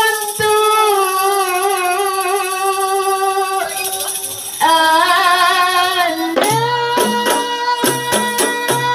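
Rebana group performance: long drawn-out sung notes, held with a slight waver and broken once near the middle. About six seconds in, the rebana frame drums come in with a steady rhythmic beat under the singing.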